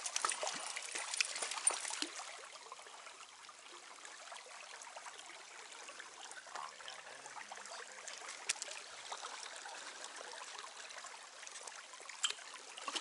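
Trout stream water running and trickling, louder for the first two seconds and then steady and softer, with a few faint clicks.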